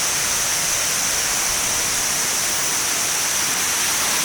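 Steady rushing of the Kuang Si waterfall, with a continuous high-pitched drone of cicadas over it.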